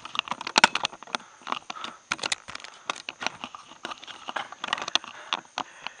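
Rapid, irregular clicks and taps of a handheld camera being handled and set up, over a faint steady high-pitched hum.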